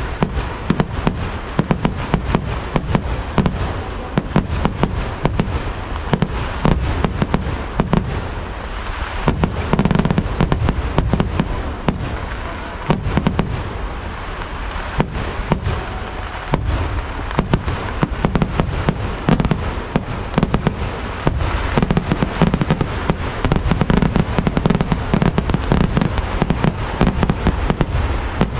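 Kerala vedikettu fireworks going off in a dense, continuous barrage, the bangs following so closely that they run together into a loud crackling rumble. It eases slightly a few times and then builds again.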